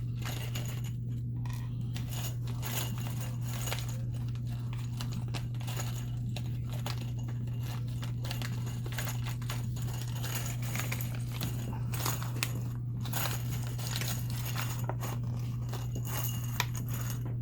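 Light scattered clicks and rattles of small plastic and metal connector parts being handled, over a steady low hum.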